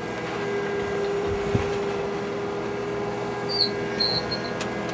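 Mini excavator's engine running steadily with a steady hum, a low thump about one and a half seconds in. A few short high squeaks come near the end.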